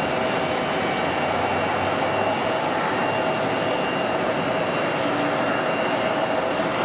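Twin turbofan engines of an Embraer E175 regional jet running as it lands: a steady rush of jet noise with a faint whine held through it.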